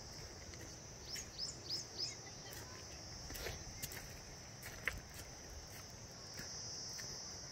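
A steady high-pitched insect drone, like crickets, with scattered crunching clicks of footsteps on gravel and flood rubble. A few short falling chirps come about a second in.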